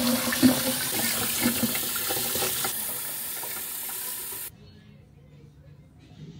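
Kitchen tap running into a plastic tub of hot air-fried eggs in a stainless steel sink, cooling them, with a few light knocks in the first half. The water stops abruptly about four and a half seconds in, leaving quiet room sound.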